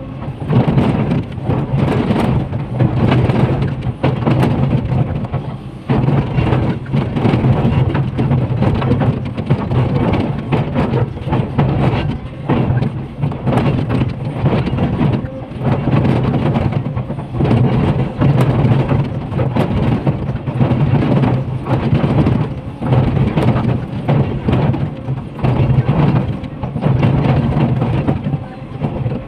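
Komatsu PC500LC excavator's diesel engine running steadily under load while its bucket teeth scrape and crunch into a rock face, with irregular knocks of breaking and falling rock.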